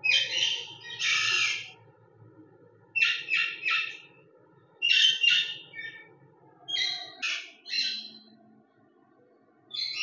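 Ringneck parakeets giving harsh, screechy squawks in short bursts, several in quick pairs or threes, with pauses between them.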